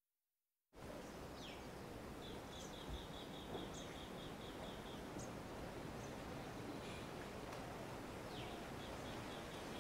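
Brief dead silence, then faint steady ambient hiss with small birds chirping outside: a few short falling chirps and a quick run of repeated high notes, about five a second, from a couple of seconds in, with another run near the end.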